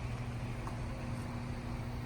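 A steady low mechanical hum over a soft hiss, unchanging throughout.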